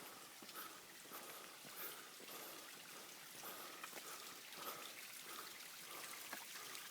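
Faint water trickling and dripping from a tree's roots, a steady splashing with many small drops.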